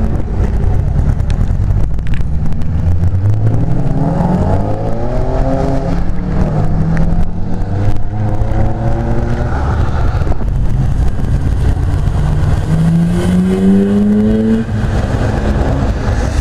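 Tuned cars accelerating away on a wet road, one engine's note climbing steeply through the revs about three seconds in, and another hard rev climb later that cuts off sharply near the end. Under it runs a constant low rumble of other idling and moving cars.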